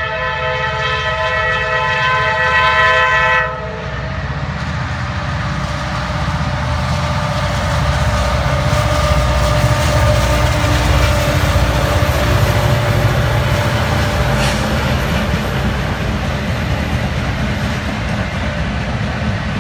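Diesel locomotive air horn sounding a held chord of several notes that cuts off suddenly about three and a half seconds in. Then a lash-up of freight diesel locomotives passes close by: engines rumbling, wheels clattering over the rail joints.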